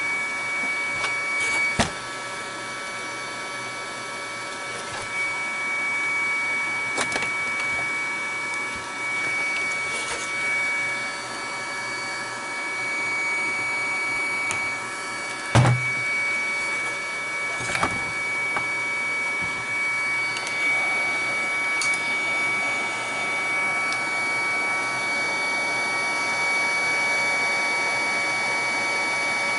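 A steady electric whir with several constant tones, broken by a few sharp clicks and knocks from tools on the motherboard as its capacitors are desoldered.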